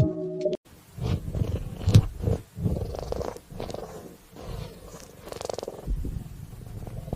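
A cat purring close to the microphone: a rapid, pulsing low rumble that comes in after a short burst of music.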